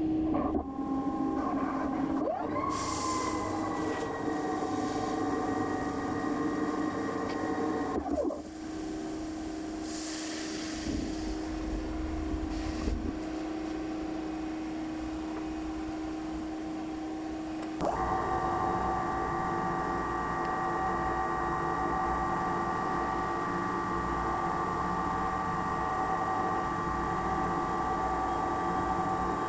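Mazak Integrex mill-turn CNC machine turning a part under flood coolant: a steady whine that rises about two seconds in as the spindle speeds up, with spraying coolant. The whine stops around eight seconds in, leaving a lower steady hum, and comes back suddenly about eighteen seconds in as the turning resumes.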